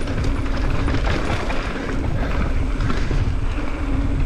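Wind rushing over an action camera's microphone and tyres rattling over a dirt trail during a fast mountain-bike descent, with a faint steady buzz underneath.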